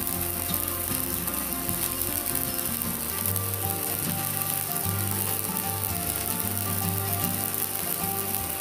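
Stick (MMA) welding arc on a 4.0 mm electrode, fed by a small IGBT inverter welder, burning steadily as the rod is run continuously under load.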